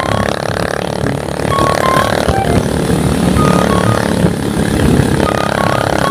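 Motor scooter running steadily while riding along a street, with engine and road rumble and wind noise on the microphone.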